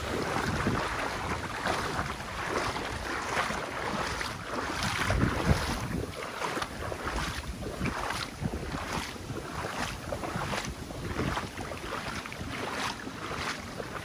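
Wind buffeting the microphone over a steady rush of water, with footsteps falling about twice a second from midway on.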